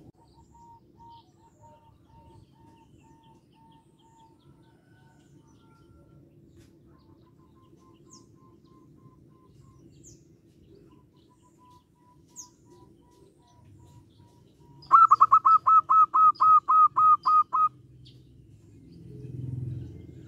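Zebra dove calling: faint trilling notes through the first half, then, about three-quarters of the way in, a loud run of about a dozen quick clipped notes lasting under three seconds.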